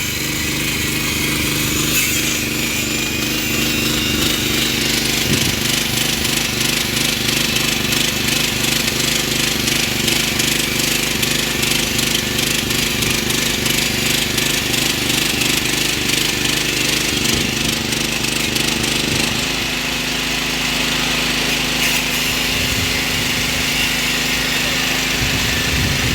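Combine harvester running: a steady engine note under a rapid, even mechanical clatter. About nineteen seconds in, the pitch of the running steps up a little and holds.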